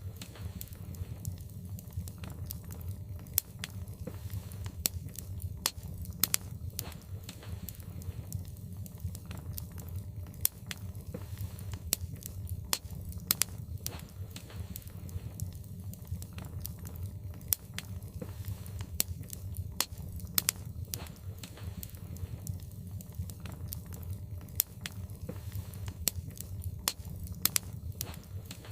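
Wood fire burning in a fireplace: irregular sharp crackles and pops over a steady low rumble.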